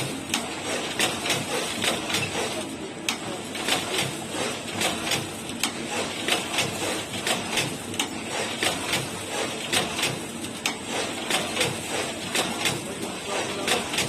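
EBX7 paper label placing machine running, its mechanism clicking at a steady pace of about two clicks a second over a continuous mechanical whir.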